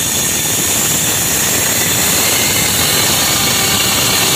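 Kitchen mixer grinder running at speed, its blade whirling soaked rice and sabudana into idli batter in a steel jar: a loud, steady whirr.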